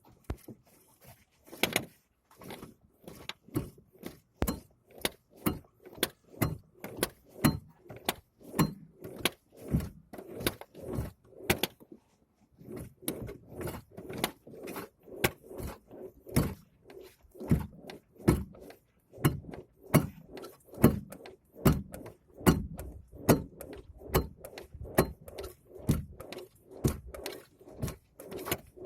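ZAZ Chance steering rack knocking about twice a second, a sharp clunk on every stroke as the front wheel is rocked back and forth by hand, with a short pause partway through. The strong knock on turning comes from a steering rack with a torn boot, which the owner takes for wear inside the rack.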